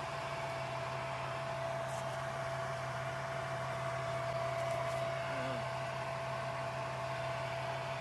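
Steady hum of a car's air-conditioning blower fan with the engine idling underneath, heard from inside the cabin.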